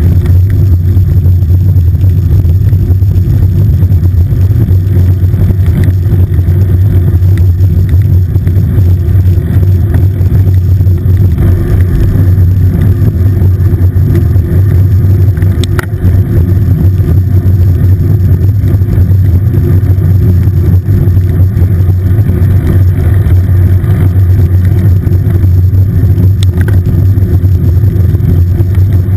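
Loud, steady low rumble of wind buffeting and road vibration picked up by a camera mounted on the handlebars of a moving road bike.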